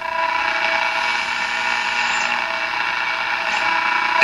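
Steady static hiss with a few steady tones from the speaker of a 1948 Emerson 547A AM tube radio, tuned off a station. The hiss shows that the restored set is receiving and playing.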